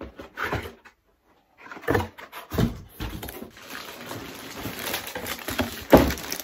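Unboxing noise: a cardboard box and its contents knock and scrape several times, then plastic wrapping rustles as the amplifier in its plastic bag is pulled out, with a sharp bump about six seconds in.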